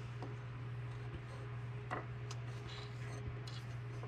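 A few light, scattered metal clicks and ticks as a small nut is fiddled onto the mounting bolt of a tractor brake safety switch, over a steady low hum.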